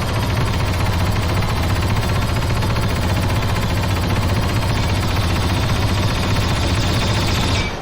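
Movie weapon sound effect: a rapid-fire gun firing a long continuous burst, then stopping abruptly near the end with a fading echo.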